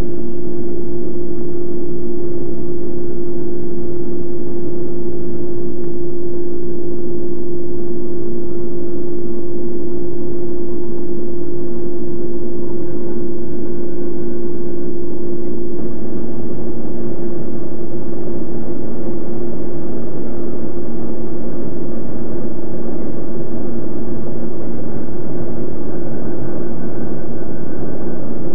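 Steady cabin drone of a jet airliner in flight, heard from inside the cabin, with a low hum held at one pitch.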